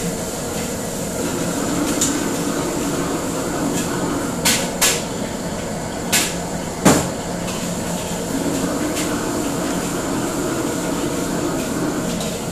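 Restaurant wok station: the extractor hood and gas wok burners running steadily, with several sharp metal clanks of ladle and wok, the loudest about seven seconds in.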